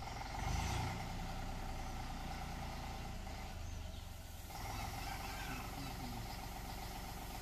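Engine of a rice harvesting machine running steadily, with a steady whine above its low drone.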